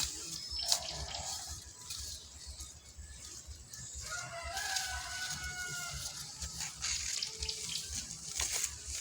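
Hand hoe (jembe) digging into soil: rough scraping with a few short knocks as the blade strikes and drags the earth.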